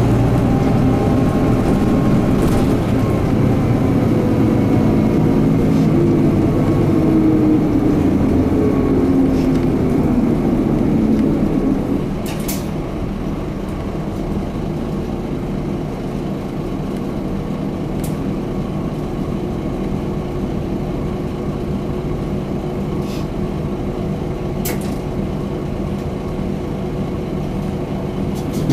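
Inside the cabin of a Mitsubishi Fuso Aero Midi MK bus, its 6M61 straight-six diesel running under load on the road, the engine note rising and falling. About twelve seconds in, the engine sound drops and runs on more quietly, with a few sharp clicks from the cabin.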